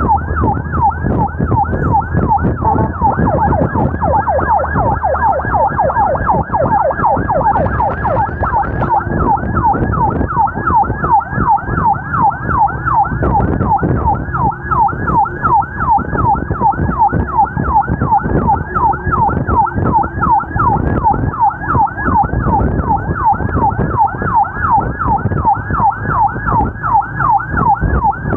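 Ambulance siren in yelp mode, a fast wail rising and falling about two to three times a second, with vehicle and road noise underneath.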